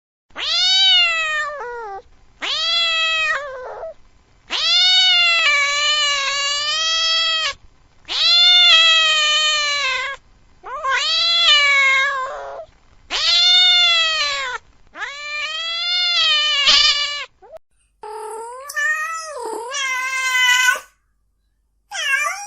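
A cat's mating call: a run of about eight long, drawn-out yowls, each one to three seconds long, rising and then falling in pitch with short pauses between them. The last few calls near the end sound brighter than the rest.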